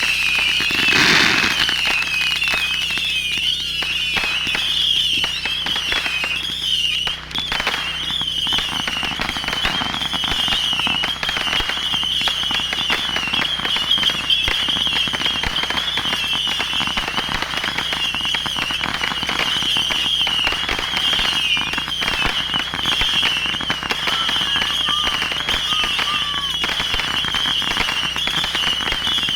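Fireworks finale barrage: dense, continuous crackling and popping of many shells and firecrackers, with a big burst about a second in. A high wavering whine runs through it the whole time.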